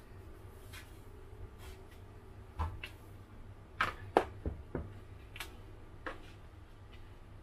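A plastic rice paddle tapping and scraping against a plastic bowl while turning glutinous rice: a string of irregular light clicks and knocks, the loudest about four seconds in, over a steady low hum.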